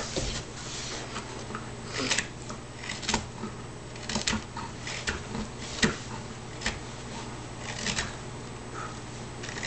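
Hand carving tool cutting into a wooden panel: separate short scraping cuts, roughly one a second, as wood shavings are pared away. A steady low hum runs underneath.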